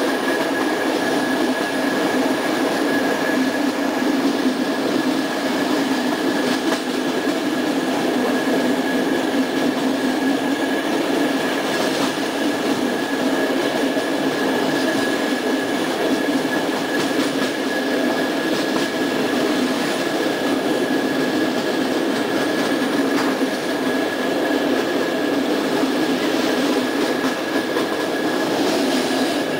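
Steady running noise of a passenger train coach at speed, heard from inside: wheels rolling on the rails with a faint clickety-clack and a thin steady high tone running through it.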